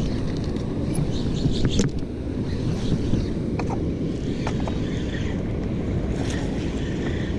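Steady low rumble of wind buffeting the microphone aboard a boat, with a few faint clicks and taps.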